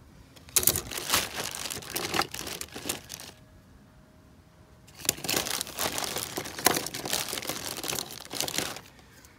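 Plastic bag crinkling and rustling as it is handled and rummaged through, in two spells of a few seconds each with a short pause between.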